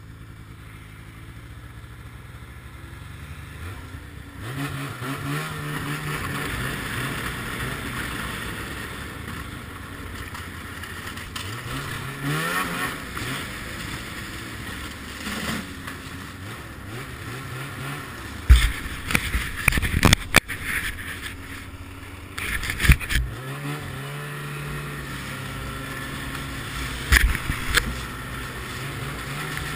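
Ski-Doo MXZ 700 snowmobile's two-stroke engine idling, then pulling away about four seconds in and revving up and down as it rides. Several sharp knocks come past the middle.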